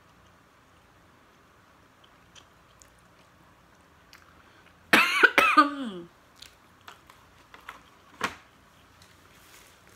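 A woman coughing hard two or three times about five seconds in, the last cough trailing into a falling voiced groan. One more short cough comes near the end, with a few faint clicks in between.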